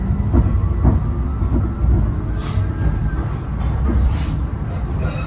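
Light rail train running, heard from inside the car: a steady low rumble, a few knocks from the wheels about half a second and a second in, and two brief hisses later on.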